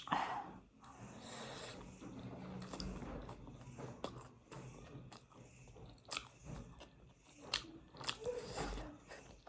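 A person chewing and biting food close to the microphone, with scattered short, sharp crunchy clicks.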